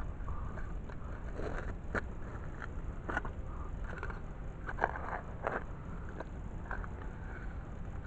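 Small metal digging shovel stabbing and scraping into grassy sod and soil: a dozen or so irregular short crunches and scrapes as the blade cuts through roots and dirt.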